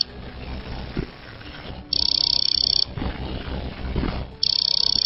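Hard disk drive with a jammed spindle motor giving a high-pitched buzzing beep about a second long, twice, roughly two and a half seconds apart. The motor is trying and failing to spin up because its bearings have seized.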